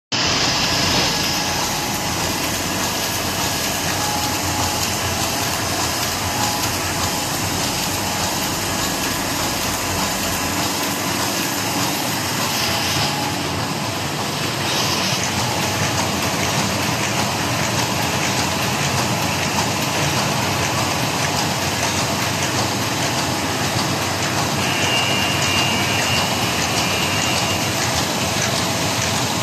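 FHS-1050 sheet-fed hot and cold laminating machine running in production, a steady mechanical din from its feeder, rollers and delivery conveyor. A faint high tone joins for a few seconds near the end.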